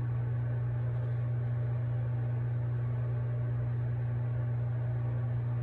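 Steady low hum, unchanging throughout, with nothing else standing out above it.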